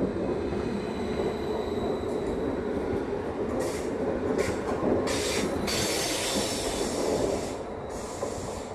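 Electric multiple-unit passenger train rolling away from the platform with a steady rumble and a faint high whine. From about three and a half seconds in it gives several bursts of high-pitched wheel squeal, and it fades a little near the end.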